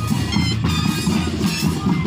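Moseñada music: a troupe of moseño flutes plays a buzzy, reedy melody in held notes over a pulsing drum beat.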